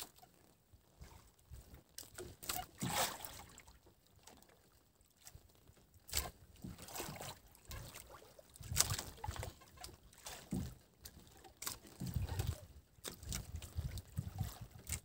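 Faint water sloshing against a small boat, with scattered light knocks and clicks of handling on board.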